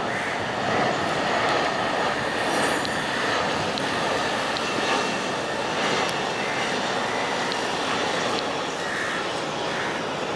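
Airbus A320 jet engines on landing approach overhead, a steady rushing engine noise with a faint whine.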